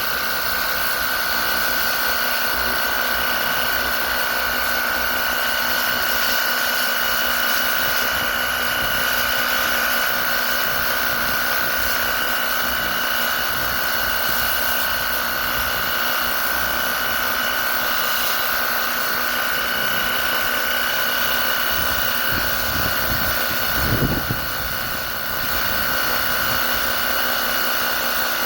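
WORX HydroShot cordless pressure washer's electric pump running steadily: a constant high whine over an even hiss. There is a brief low bump about 24 seconds in.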